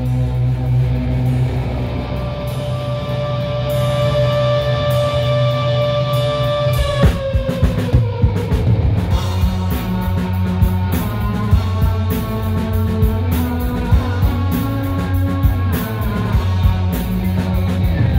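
Live rock band on electric guitar, bass guitar and drum kit, loud through a club PA. The band holds a sustained chord for about seven seconds, then slides down in pitch. The drums then come in hard with a steady beat under the held notes.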